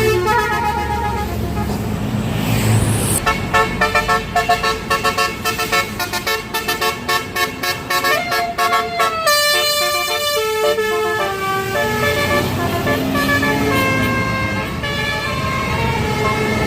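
Tour bus's basuri musical air horn playing a telolet tune: a quick run of short stuttering notes, then shifting and longer held notes, over the rumble of the bus and traffic.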